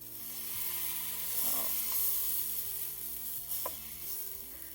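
Crêpe batter sizzling on a hot oiled griddle as it is spread thin with a crêpe spreader; the sizzle swells about a second in and eases off toward the end.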